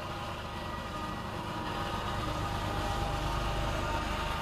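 Norfolk Southern diesel freight locomotives approaching, their engine rumble growing steadily louder as the lead unit draws level.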